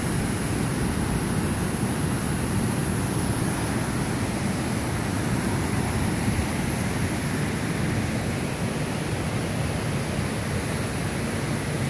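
Steady rushing of a waterfall and creek running high with floodwater, an even roar that holds without a break.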